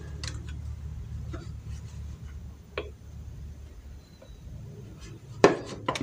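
Plastic clicks and taps from the black dirty-water tank lid of a Bolde Smart Hoover Aquaman floor cleaner being handled, with a louder knock about five and a half seconds in, over a steady low hum.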